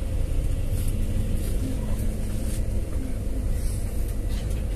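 A bus's diesel engine running steadily at low speed, heard from inside the cabin as a low rumble while the bus rolls slowly.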